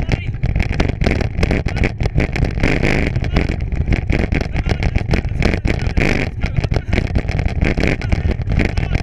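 Bicycle rolling fast over a rough, bumpy trail, a constant rumble with many small rattles and knocks, with wind buffeting the microphone.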